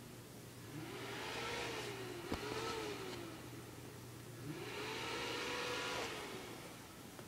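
Faulty old computer making a chainsaw-like revving noise: a motor whine that rises in pitch, holds and falls away, twice, with a hiss over it. The noise is a sign of the machine failing.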